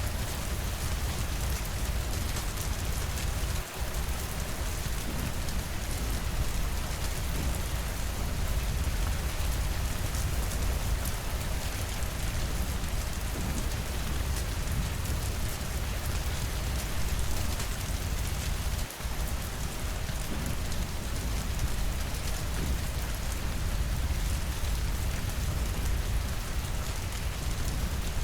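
Steady rain falling, a dense patter of drops over a constant low rumble. Twice it drops out for an instant.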